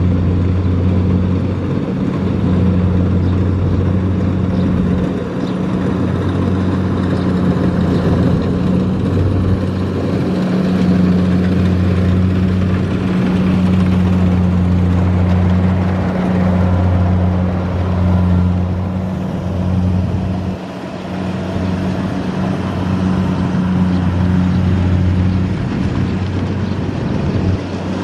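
Kubota M6040SU tractor's four-cylinder diesel engine running steadily as the tractor drives across a field, dipping briefly about three-quarters of the way in.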